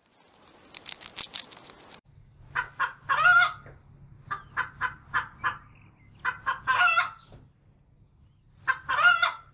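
A hen clucking in three bouts. Each bout is a quick run of short clucks ending in one longer, drawn-out cackle note. A burst of rapid clicking that stops abruptly comes before the first bout.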